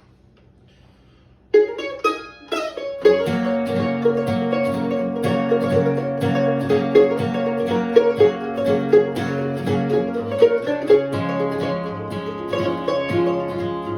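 Acoustic plucked string instruments playing an instrumental intro: a few single picked notes come in about a second and a half in, then steady rhythmic strumming with a picked melody over it from about three seconds on.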